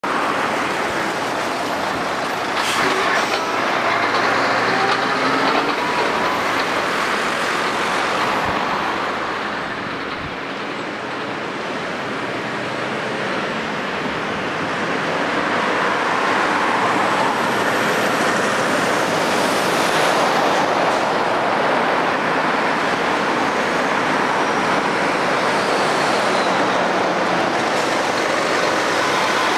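Road traffic of articulated lorries and cars passing close by, their diesel engines and tyre noise rising and falling as each goes past, with a dip around ten seconds in. A few knocks and rattles come about three seconds in.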